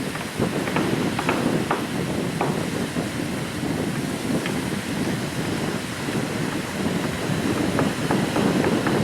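Wind buffeting the microphone over the wash of sea waves on a beach, with a few faint short ticks.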